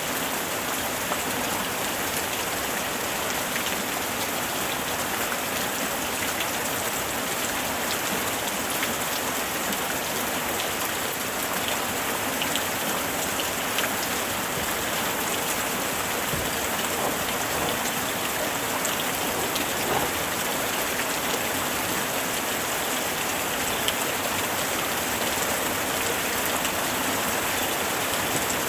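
Steady rain falling, a constant hiss with scattered individual drops ticking on surfaces.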